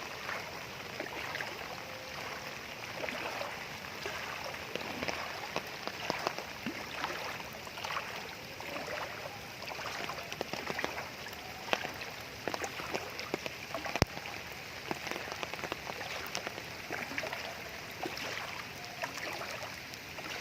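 Knee-deep floodwater splashing and sloshing with many irregular splashes, as someone wades through it. One sharp click about two-thirds of the way through.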